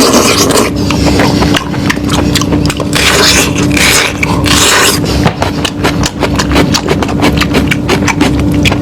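Close-miked chewing and eating of lamb meat, loud, with many quick irregular clicks and smacks. A steady low hum runs underneath.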